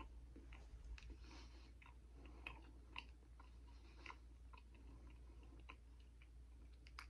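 A person chewing a mouthful of crumbly steamed suet pudding, faint, with scattered soft clicks of the mouth.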